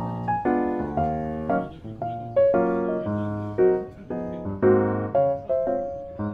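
Background music: a piano tune of short, separate notes over low bass notes.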